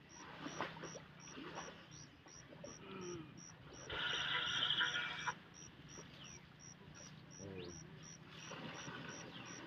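Outdoor ambience with an insect chirping steadily, short high chirps about three times a second, and scattered faint calls. About four seconds in, a louder noisy sound lasts about a second and a half.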